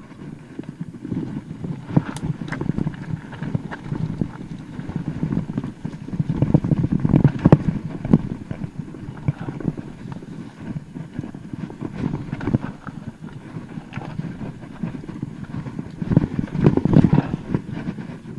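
Mountain bike clattering down a rough trail: many irregular sharp knocks as the tyres and frame hit rocks and roots, with the chain and bike rattling, the noise swelling and easing with the terrain.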